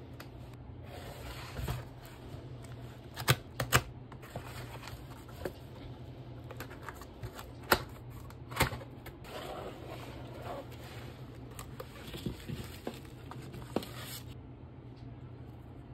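A cardboard product box being handled and opened by hand: sharp taps and knocks of the cardboard, with scraping and rustling as the lid is worked open and the contents are touched.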